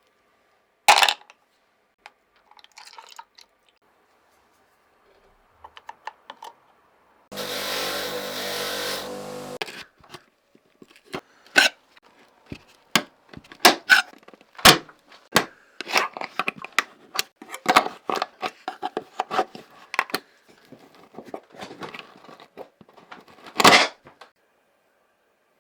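Hand work on parts: a sharp knock, then a steady hiss-like burst lasting about two seconds, followed by a dense run of taps, knocks and scrapes and one louder scrape near the end.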